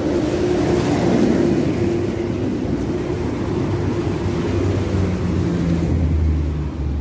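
Road traffic on a busy multi-lane road, with vehicles passing continuously. In the last couple of seconds a deeper engine hum from a heavier vehicle comes up.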